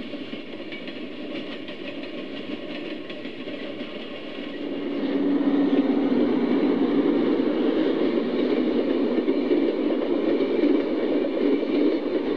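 HO scale model train running on track: steady rolling rumble of metal wheels on the rails with a light clickety-clack, growing louder about five seconds in as cars pass close by.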